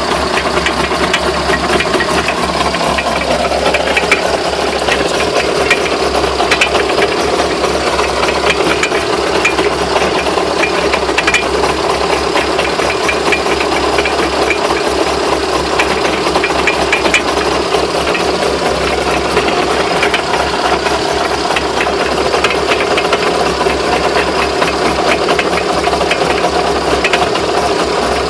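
A car running with a steady, dense knocking and rattling from the drivetrain, which the owner asks about as possibly bent drive shafts (CV half-shafts).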